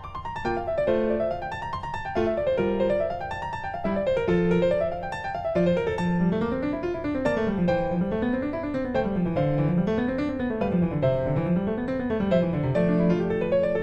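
Background music: piano playing rolling runs of notes up and down.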